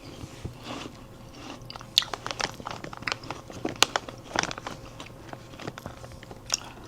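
A person chewing and biting food close to the microphone: irregular short wet clicks and small crunches.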